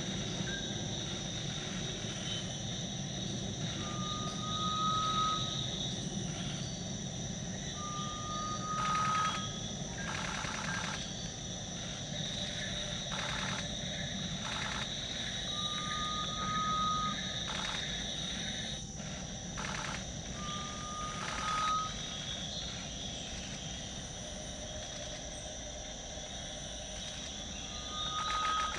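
Garnet pitta song: a single slightly rising whistle about a second long, repeated five times at intervals of several seconds, over a steady high drone of forest insects.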